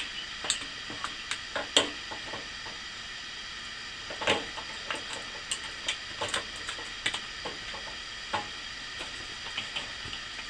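Irregular small clicks and rattles of batteries being handled and fitted into a kerosene heater's battery compartment, over a steady faint hiss.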